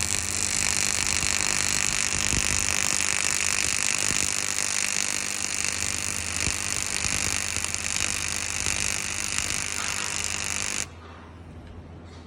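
Stick-welding arc crackling and sizzling steadily while a root pass is laid, over a steady low mains hum. The arc breaks off suddenly about eleven seconds in, leaving only the hum.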